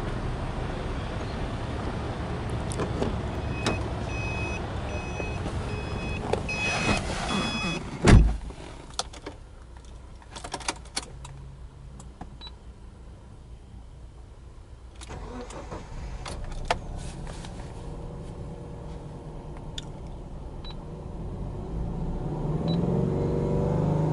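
A car's beeping chime, then a car door shutting with a loud thump about 8 seconds in, followed by a quiet interior with scattered clicks. Near the end, a Subaru Impreza 15S's 1.5-litre flat-four boxer engine starts and runs at a fast idle of about 2,500 rpm.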